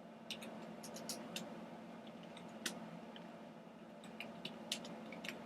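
Scattered light clicks of a computer keyboard and mouse, coming in small irregular clusters, over a steady low hum.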